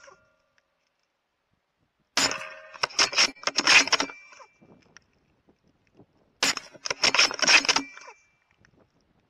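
Two .308 Winchester bolt-action rifle shots about four seconds apart, each a sudden crack that carries on for about a second and a half, recorded through the thermal scope's microphone, with faint clicks in the gap between them.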